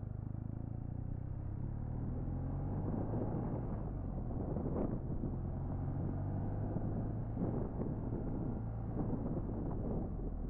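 BMW R1200R's boxer twin engine running steadily as the motorcycle rides along, with occasional gusts of wind noise on the microphone.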